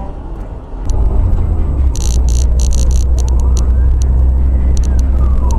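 Steady low rumble of a car driving, heard from a dashcam inside the cabin, growing louder about a second in, with scattered light ticks and rattles.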